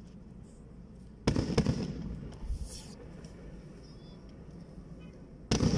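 Fireworks bursting in the sky: two sharp bangs close together about a second in, each fading off with a rumbling echo, a brief crackle a second later, and another bang near the end.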